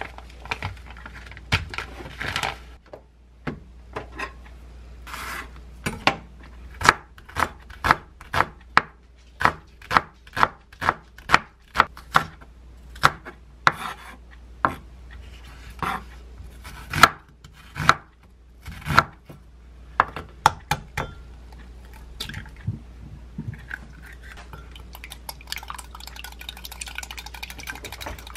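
Kitchen knife chopping green onion on a wooden cutting board: sharp, separate knocks about one or two a second. It opens with a plastic food package crinkling, and near the end a small wire whisk beats eggs in a glass cup with fast ticking.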